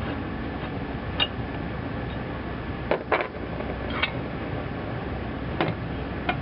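Metal bench-vise parts clinking and knocking together as they are handled during reassembly, about six short sharp clinks spread unevenly, over a steady background hum.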